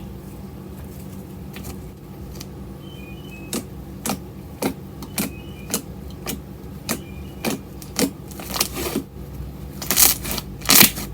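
Slime being squished and poked by hand, giving sharp clicking pops about twice a second that grow louder and crackle near the end, over a steady low hum.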